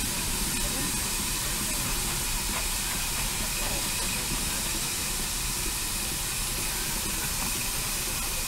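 Steady hiss of steam escaping from a row of parked steam traction engines and steam rollers that are standing in steam.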